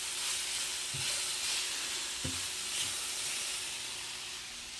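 Chicken sizzling in a sauté pan, a steady hiss that fades slightly, with a couple of faint knocks about a second and two seconds in.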